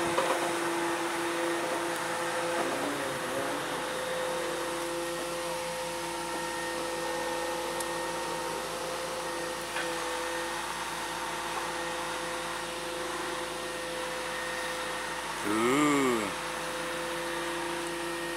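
Boom truck's hydraulic crane and engine running with a steady whine while hoisting a pallet of shingles. Near the end there is a brief, louder sound that rises and then falls in pitch.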